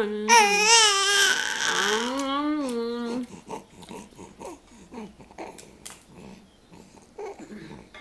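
Infant crying: a loud, wavering wail for about three seconds, then breaking off into soft whimpers and small clicks.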